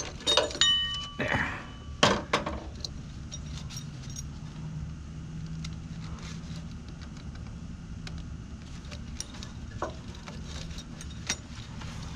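Metal clinking and rattling as a steel bracket and parking brake cable hardware are handled: a few sharp ringing clinks in the first two seconds or so, then occasional light ticks and two small clinks near the end.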